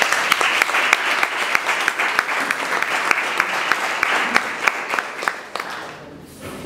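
Audience applauding, many hands clapping, dying away about six seconds in.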